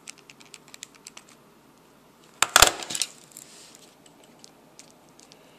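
Keys of a Texas Instruments TI-30X II calculator being pressed, a few light plastic clicks, then a louder clatter of hard plastic about two and a half seconds in.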